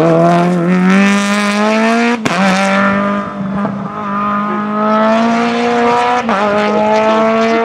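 Peugeot 208 rally car's engine accelerating hard away from a hairpin, its pitch climbing steadily in each gear, with upshifts about two seconds in and again about six seconds in.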